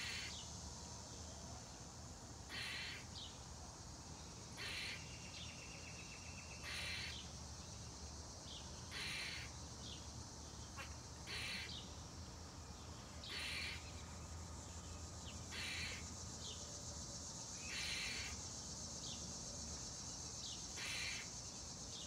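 Harsh animal calls, each about half a second long, repeated at an even pace of about one every two seconds, over a steady high-pitched insect drone.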